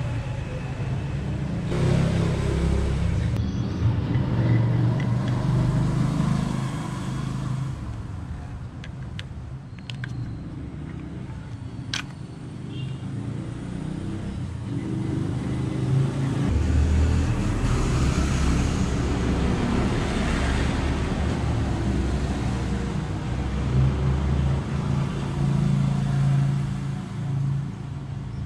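A motor vehicle engine running, its pitch stepping up and down with changing revs, over road noise.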